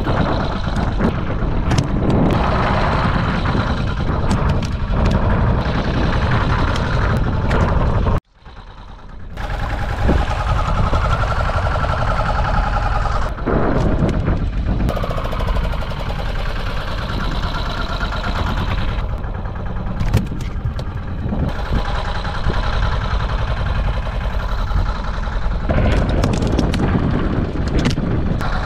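Fishing boat's engine running steadily. The sound cuts out suddenly about eight seconds in and fades back up.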